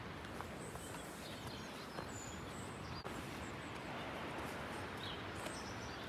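Steady rushing outdoor noise, with small birds giving short high chirps several times and a few faint clicks.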